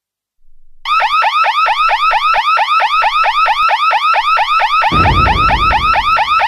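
Cartoon fire alarm sound effect: a loud electronic yelp whose pitch sweeps about five times a second, cutting off suddenly near the end. A low rumble joins about five seconds in.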